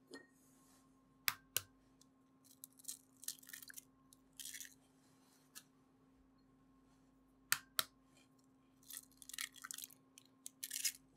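Eggs being cracked one after another into a glass mixing bowl: two pairs of sharp taps as shells are struck, about a second and six seconds apart, each followed by soft crackling of the shell being pulled apart.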